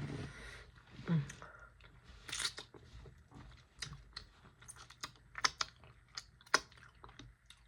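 Close-up chewing and biting into saucy chicken wings: wet, crunchy mouth sounds with irregular sharp clicks and smacks.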